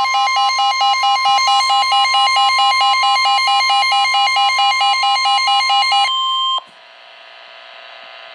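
Emergency Alert System attention signal ahead of a severe thunderstorm warning: a steady high electronic tone under a rapidly pulsing chord of beeps. The beeps stop about six seconds in, and the steady tone cuts off half a second later, leaving only a faint steady background noise.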